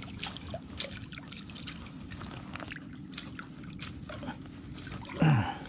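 Hooked largemouth bass splashing and thrashing at the water's surface beside the boat as it is landed by hand, heard as scattered small splashes and clicks over a steady low rumble.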